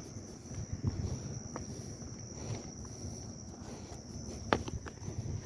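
Steady high-pitched insect chorus, with low scuffs and scattered clicks of handling on the rocks and a sharp click about four and a half seconds in.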